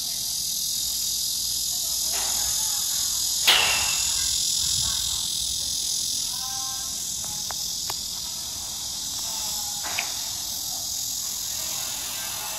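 Cicadas singing in a loud, steady, high-pitched chorus. A sharp click cuts through about three and a half seconds in, and a smaller one comes near the end.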